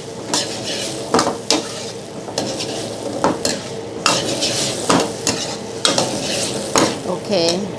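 Mixed vegetables sizzling in a very hot stainless steel wok over a high gas flame, with a steady frying hiss. A metal ladle scrapes and knocks against the wok roughly once a second as the vegetables are stir-fried.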